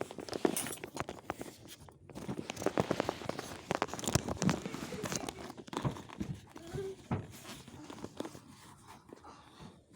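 Stitching on a fabric bag seam being pulled and ripped out: a run of small sharp snaps and crackles of thread and fabric, busiest in the middle.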